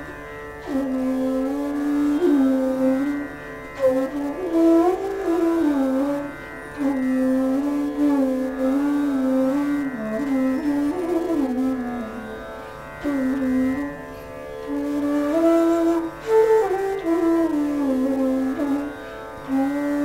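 Bansuri bamboo flute in D playing Raag Megh Malhar: gliding, ornamented notes in phrases with short breaks for breath between them, over a steady drone.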